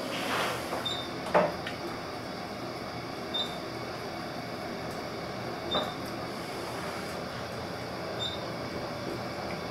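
Otis traction elevator car travelling upward, with steady ride noise in the cab and a knock early on. A short high beep sounds about every two and a half seconds as the car passes each floor.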